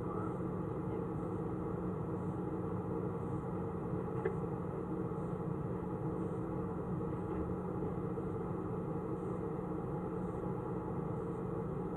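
Steady, muffled low rumble with a constant hum, and a single faint click about four seconds in.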